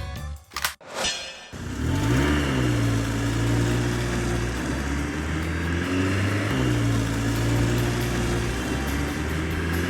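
Music ending with a quick whoosh, then a vehicle engine sound running steadily and revving up briefly twice.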